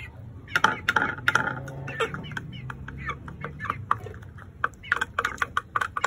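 Young Aseel chickens pecking food from a ceramic plate, their beaks tapping it in quick irregular clicks, with short chicken calls in the first second or two.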